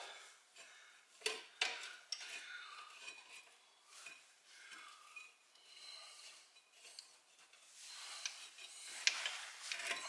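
Faint metal clinks and scraping as a brake caliper bracket bolt is worked by hand through the backing plate of a 2003 Mitsubishi Galant's front brake, with a few sharper clicks, two about a second and a half in and one near the end.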